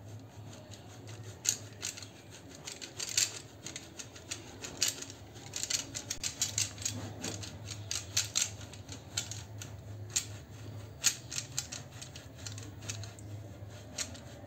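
Block of mozzarella being grated on a flat metal hand grater: an uneven run of quick, sharp scraping strokes, some bunched close together.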